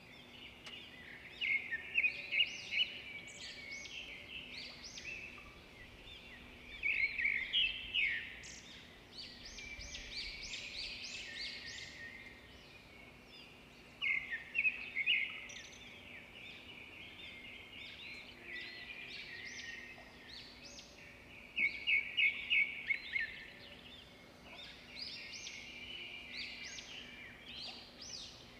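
Songbirds chirping and twittering, with bursts of rapid high chirps every several seconds over a faint steady hum.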